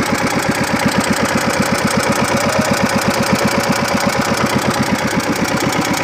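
An engine running steadily with an even, rapid chug of about ten pulses a second.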